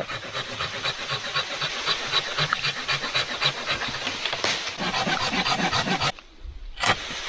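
Silky Gomboy folding pruning saw cutting through a fallen log with quick, even rasping strokes. The strokes stop about six seconds in.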